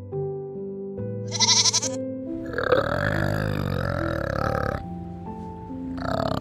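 Piano background music plays throughout. A goat kid bleats once, about a second and a half in. From about two and a half seconds, an adult male orangutan gives a long, rasping call, breaks off near the end, and starts again just before the end.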